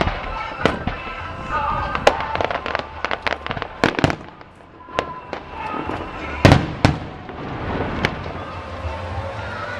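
Fireworks display: aerial shells bursting in an uneven string of sharp bangs and crackles, with the loudest pair of bangs about six and a half seconds in.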